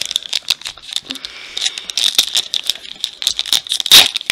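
Trading-card pack wrapper crinkling in the hands as it is torn open, a quick irregular run of crackles with a louder crackle near the end.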